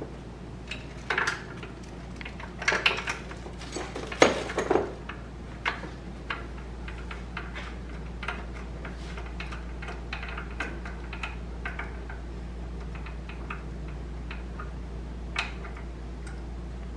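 Light metallic clicks and clinks of a hand tool and small metal parts in an open cylinder head with the camshafts removed: a quick flurry in the first five seconds, then scattered single ticks, over a steady low hum.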